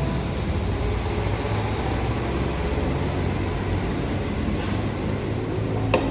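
Steady low rumble of road traffic, with a short hiss about two-thirds of the way through and a sharp click near the end.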